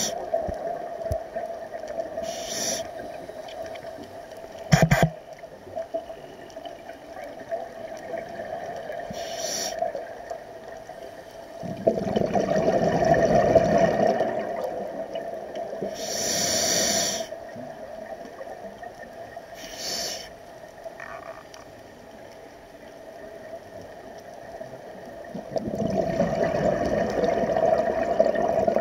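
Scuba diver breathing through a regulator underwater: several short hissing inhalations and two long bubbling exhalations, one about twelve seconds in and one near the end. A sharp knock about five seconds in, over a steady hum.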